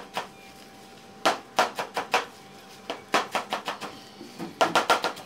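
Large kitchen knife chopping fresh leafy greens on a plastic cutting board: three quick runs of sharp knocks with short pauses between, the last run the fastest.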